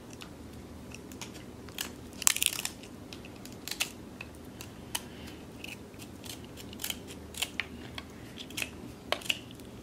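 Cooked crab legs being cut and cracked open with shears: irregular sharp cracks and crunches of the shell, the loudest cluster about two seconds in.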